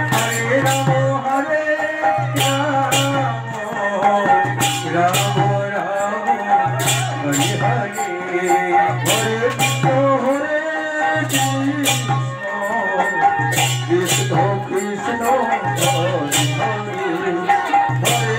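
Devotional song with voices singing over a low pulse that repeats about every two seconds, and frequent sharp percussive strikes throughout.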